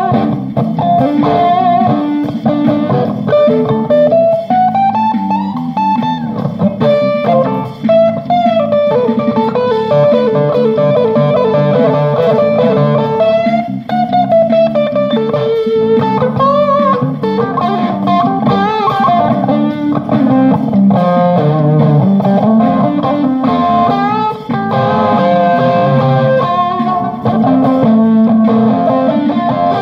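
Guitar played in an improvised jam: single-note melodic lines that slide and bend, over a continuous lower part.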